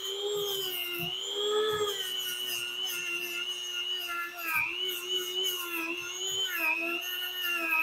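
An older Dremel rotary tool running at high speed with an abrasive buff, sanding a carved wooden claw-and-ball foot. Its steady whine sags in pitch a couple of times as the buff is pressed into the wood, over a rasping of abrasive on wood.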